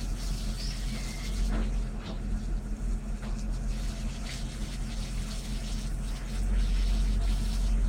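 Water from a fire hose spraying onto a burning car, a steady rushing hiss, over a steady low rumble.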